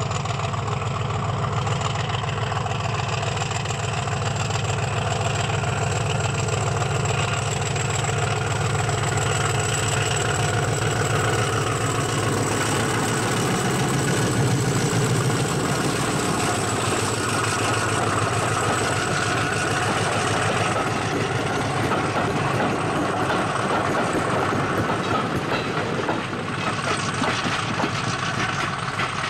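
English Electric Class 50 diesel locomotive's 16-cylinder engine running as it approaches and passes with a train of coaches. The low engine note is loudest about halfway through, then fades into the steady rolling of the coaches' wheels on the rails as the train moves away.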